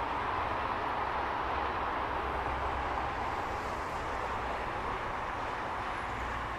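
Steady freeway traffic noise: the continuous tire and engine hum of cars and semi-trucks passing along a multi-lane highway.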